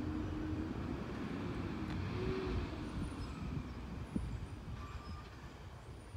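Garbage truck's diesel engine running further down the street: a steady low rumble with a faint whine that rises a little about two seconds in and then fades, and a single light click about four seconds in. The sound eases off toward the end.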